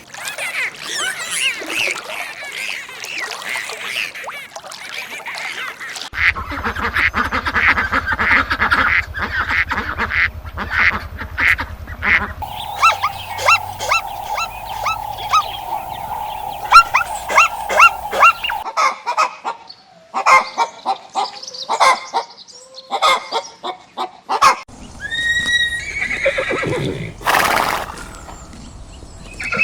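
A run of short farm-animal recordings that change every few seconds, mostly waterfowl quacking and honking in quick repeated calls, with a horse whinnying near the end.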